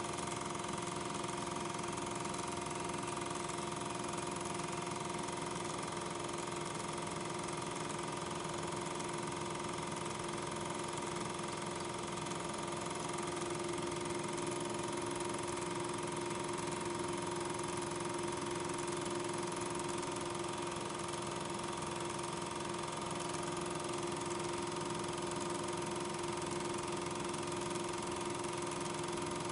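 Steady mechanical whir: a constant hum with several fixed tones over an even hiss, unchanging throughout.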